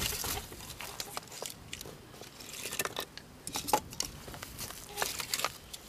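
Dry twigs and sticks clicking and crackling as they are handled and pushed under a three-legged cast-iron pot to lay a cooking fire: scattered sharp clicks with a couple of brief rustling stretches.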